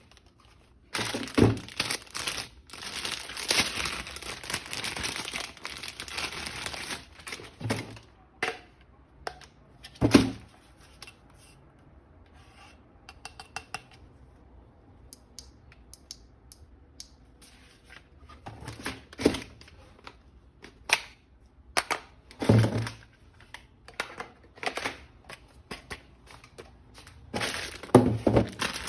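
Packaging tearing and crinkling, with a few sharp knocks scattered through.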